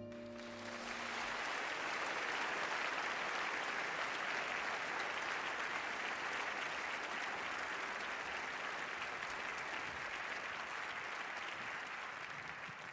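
Audience applauding at the end of a song. The applause builds over the first second, holds steady, and dies down near the end.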